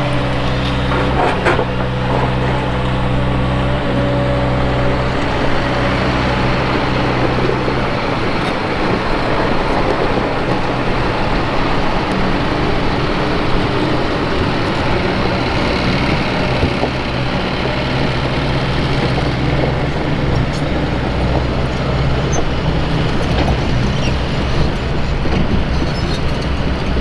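Loaded Scania R560 dump truck's V8 diesel engine running as the truck drives off. A steady engine hum for the first several seconds gives way to a rougher, noisier sound.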